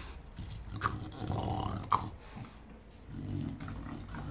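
English bulldog growling low and grumbling.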